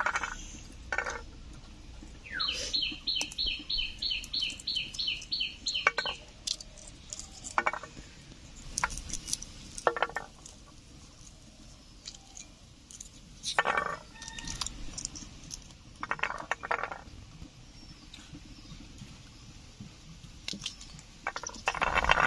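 Domestic hens clucking now and then in short calls. A few seconds in, a bird gives a quick run of about a dozen high, evenly repeated notes.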